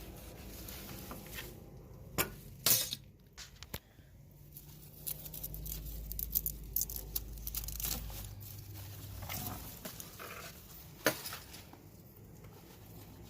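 A tomato plant being pulled out by hand: leaves and vines rustle, with several sharp cracks, the loudest about two to three seconds in and another near the end.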